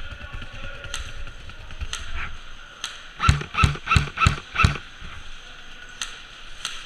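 Airsoft gun firing five quick shots, about three a second, a little over three seconds in, with a few single sharp shots scattered before and after.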